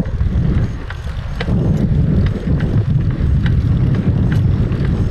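Wind buffeting the microphone of a camera riding on a moving bicycle: a heavy, steady rumble, with faint scattered clicks.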